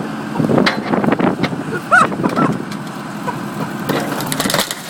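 Car body being crushed by an excavator: a run of loud metal crunches and cracks with a brief screech about two seconds in, then more crunching near the end.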